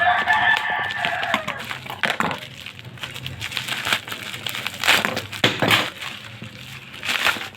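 A rooster crows once at the start, a single drawn-out call that sags in pitch at the end. Then packaging rustles and crinkles, with sharp clicks and knocks as the box and its contents are handled.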